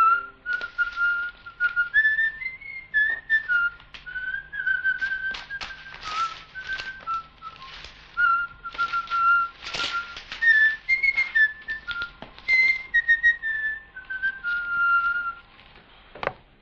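A person whistling a meandering tune in short notes, with papers and magazines rustling over it. The whistling stops shortly before the end, and a single thump follows.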